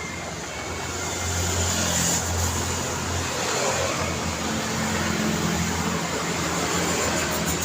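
Road traffic: cars and other vehicles passing, a steady rush of tyre noise with the low hum of engines. It gets a little louder about a second in as nearer vehicles pass.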